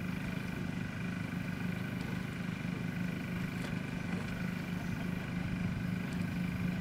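Steady engine drone at constant speed: a low hum with fainter, higher steady tones above it.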